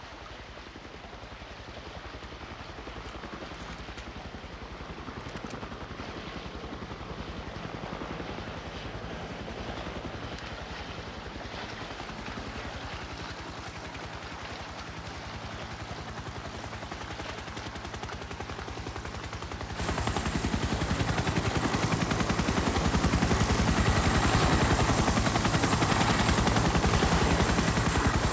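Helicopter rotor chopping in a rapid, steady beat, slowly growing louder, then much louder from about twenty seconds in.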